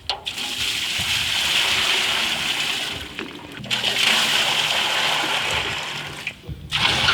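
Shotcrete nozzle spraying vermiculite plaster with compressed air: a loud, steady hissing spray with wet splatter, cut off briefly about three and a half seconds in and again near the end.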